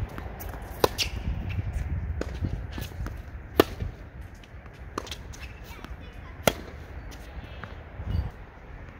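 Tennis balls struck by a racket during forehand practice, sharp pops of ball on strings with softer bounces between; the three loudest hits come about three seconds apart, over a low rumble of wind.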